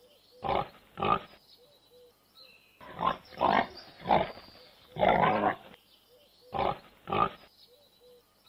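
Pigs grunting: about eight short, rough grunts in loose groups of two or three, with one longer grunt about five seconds in.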